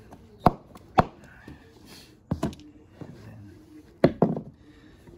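A hammer tapping a dowel to drive it through the slits of a wet rawhide drum head: about six short, sharp knocks, mostly in quick pairs.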